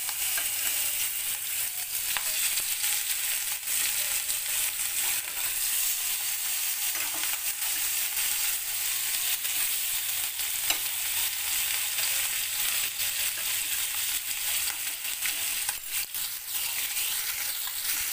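Fish steaks rubbed with salt and turmeric frying in hot mustard oil in a nonstick pan: a steady dense sizzle with continual crackling and pops of spitting oil.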